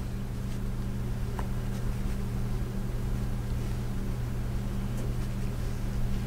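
Steady low hum of room machinery or electrical equipment, with a few faint light ticks scattered through it.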